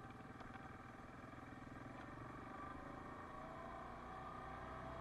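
Yamaha Kodiak 700 ATV's single-cylinder engine running at low trail speed, picking up slightly in the second half, with a couple of faint clicks early.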